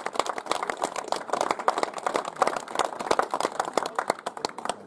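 A small group of people applauding by hand, many quick overlapping claps.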